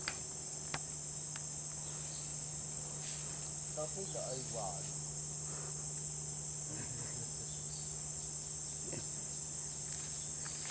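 Steady, high-pitched insect chorus droning without a break, with a faint low hum underneath and a couple of sharp clicks near the start.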